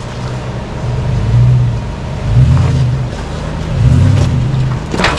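Toyota truck engine revved in three short swells, the throttle pushed and let off while picking over rough ground. A single sharp knock or scrape near the end.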